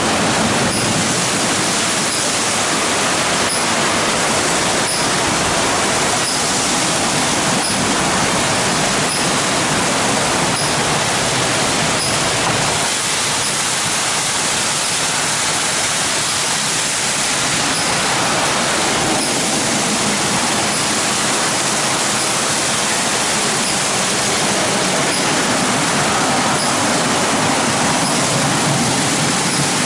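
Automatic rollover car wash brushes rotating and scrubbing a wet car amid spraying water: a steady rushing noise with faint regular ticks.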